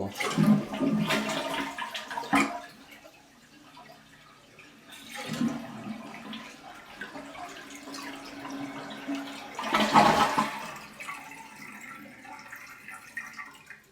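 Toilet being flushed with its water supply shut off, so the tank drains without refilling. The rush of water comes twice, with a click between, and the second flush swells about ten seconds in before fading.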